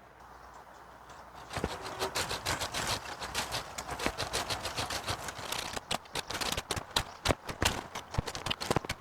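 Leafy citrus branches rustling and cracking, with irregular clicks and snaps, as a branch is cut and pulled out of the tree. It starts about a second and a half in.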